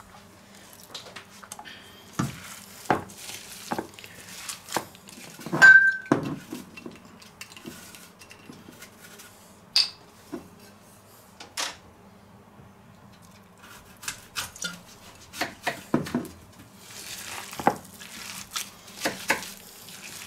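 Hands kneading chopped apple and marzipan in a stainless-steel bowl: scattered knocks and clinks of the metal bowl, one about six seconds in ringing briefly.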